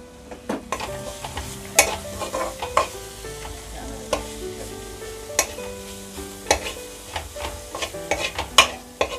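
A steel spoon scrapes and knocks irregularly against a nonstick kadai as it stirs chopped onions, tomato and spices sizzling in oil over a low flame.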